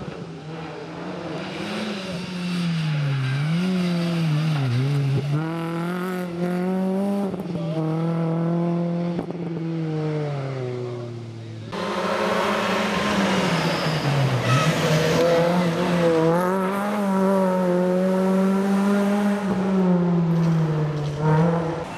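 Renault Clio rally car's engine at racing speed, the revs rising and falling as the driver lifts, brakes and accelerates through bends, then falling away as the car leaves. Just before halfway it cuts abruptly to a second pass with the engine revving high again.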